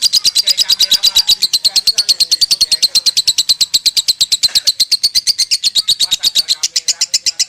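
Lovebird singing a long, unbroken 'konslet'-style chattering song (kekean): rapid, evenly repeated high notes, about a dozen a second, with no pause.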